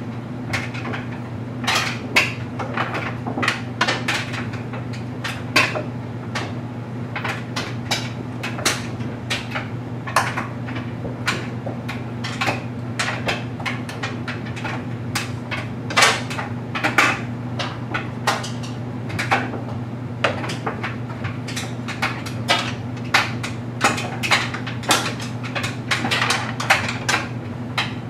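LG Mega Capacity clothes dryer tumbling a load of stuffed animals: a steady low motor hum under frequent, irregular clicks and knocks from the load striking the drum.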